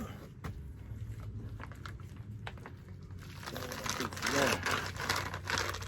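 Gloved hands handling a lubed-up camshaft: scattered light clicks and taps, turning to a denser rustling and smearing from about halfway through.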